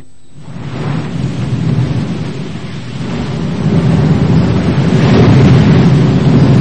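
A low, noisy rumble in a cartoon soundtrack. It sets in about half a second in and swells louder over the next few seconds.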